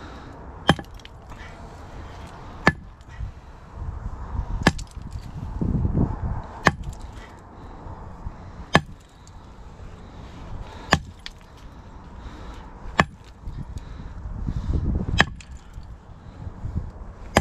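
Iron-handled sledgehammer striking a large rock, sharp cracks about every two seconds, eight blows in all, as the stone is broken up to split it apart.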